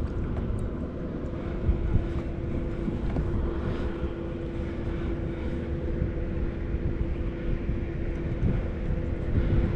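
A small motor, most likely the kayak's outboard, running steadily at one unchanging pitch over a low rumble.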